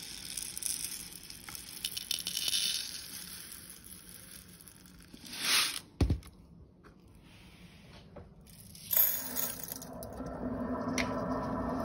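Drain-clearing granules rattling as they are poured from a plastic bottle into its plastic cap, then a sharp knock as the bottle or cap is set down. About nine seconds in, the capful is tipped into the wet steel sink drain, followed by a steady fizzing as the granules react in the drain.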